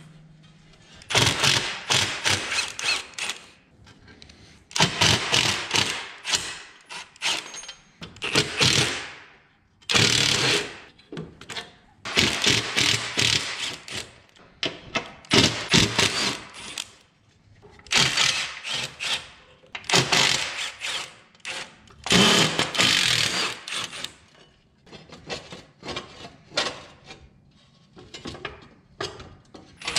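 Cordless impact driver hammering rusty bolts out of a vintage Clark forklift's steel floor plate, in repeated bursts of one to three seconds with short pauses between. Near the end the bursts give way to lighter, shorter clicks.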